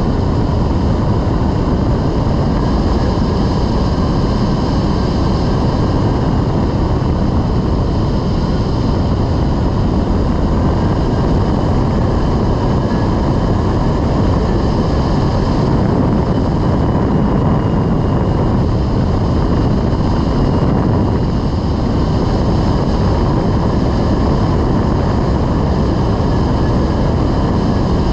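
Steady rush of airflow and wind buffeting the microphone of a rigid-wing hang glider in flight, with a faint steady tone beneath it.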